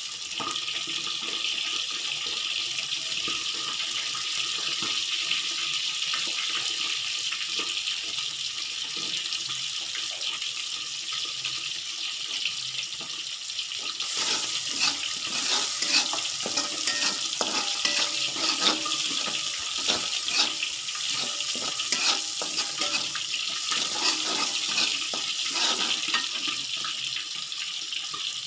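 Chopped garlic, scallions and chilies sizzling steadily in melted margarine in a wok. From about halfway through, a metal spatula scrapes and clinks against the wok again and again as the aromatics are stirred.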